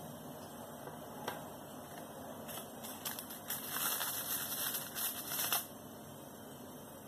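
Crinkly rustling and crackling of something being handled, lasting about three seconds from about two and a half seconds in, after a single click a little after one second.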